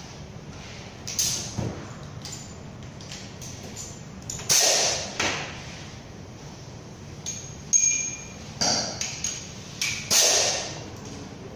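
Irregular sharp metallic clanks and knocks, about six of them, some ringing briefly. They come from hand tools and parts striking a dismantled Toyota 2TR engine hanging from a chain hoist.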